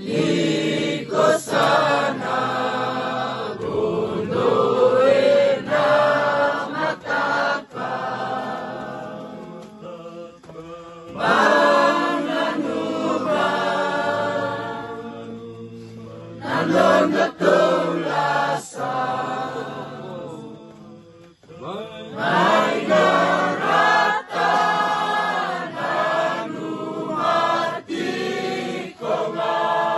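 A group of Fijian villagers singing together, several voices at once, in long sung phrases with short breaks between them.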